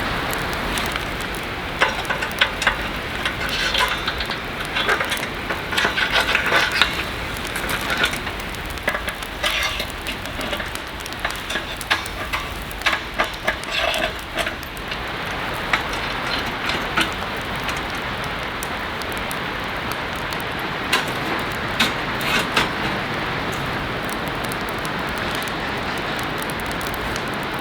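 Heavy rain falling steadily on a tent, with many sharp clicks and knocks during roughly the first half and a few more later on.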